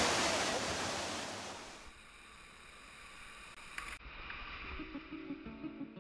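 Whitewater rapids rushing, fading out over the first two seconds. After a click about four seconds in, faint water and the first plucked notes of guitar music.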